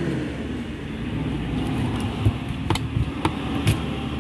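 A long knife chopping a king fish (seer fish) into steaks, with about four sharp knocks roughly half a second apart from about two seconds in, as the blade cuts through the backbone onto the hard cutting surface. A steady low background rumble runs underneath.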